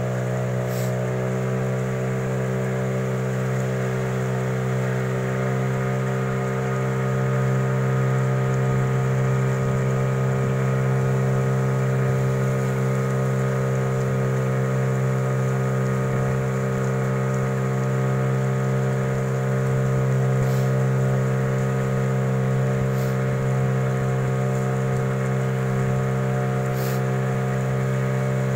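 A river boat's outboard motor running steadily at cruising speed: a constant drone with no change in pitch or throttle.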